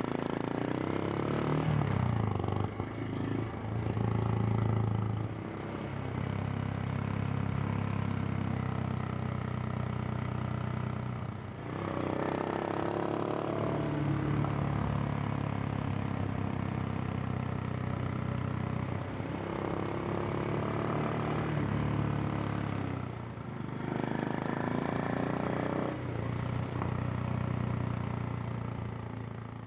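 Royal Enfield Himalayan's single-cylinder engine and exhaust under way. The engine note climbs in pitch and drops back several times as the bike pulls through the gears.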